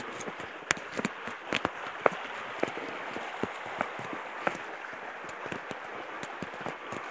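Footsteps on rock and dirt with irregular sharp knocks and clicks, over a steady rush of a creek flowing over rock slabs.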